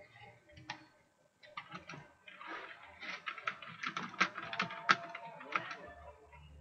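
Computer keyboard typing: a fast run of key clicks that starts about a second and a half in and stops just before the end.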